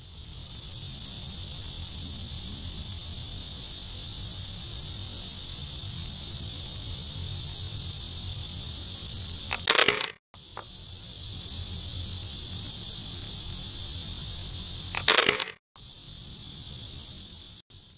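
Steady, high-pitched chorus of insects droning, broken by two brief loud cracks about ten and fifteen seconds in, each followed by a moment of silence.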